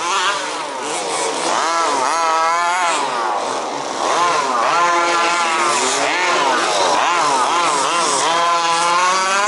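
Several 1/5th-scale off-road RC buggies' small two-stroke petrol engines revving up and down as they race, their overlapping pitches rising and falling with throttle.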